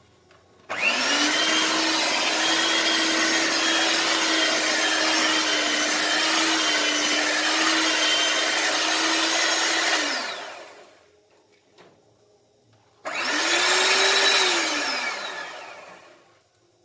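Electric mixer motor beating cake batter while milk is worked in. It spins up about a second in, runs steadily for about nine seconds and winds down, then runs again in a shorter burst near the end that rises and falls away.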